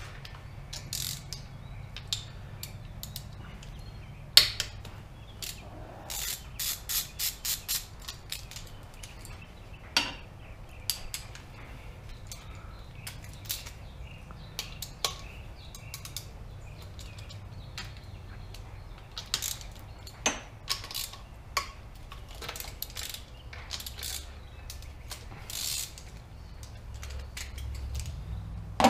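Socket ratchet clicking in short runs as bolts are undone on an ATV engine's cylinder head, with scattered clinks and taps of tools on metal. The longest run, about four clicks a second, comes about six seconds in.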